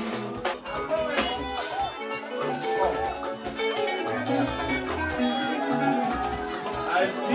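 Live band music: an electric guitar playing a bright melodic line over a drum kit and percussion, with a steady beat.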